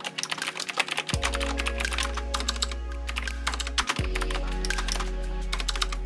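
Rapid typing on an Azio Retro Classic typewriter-style mechanical keyboard with clicky blue switches, a dense run of sharp key clicks, with background music underneath.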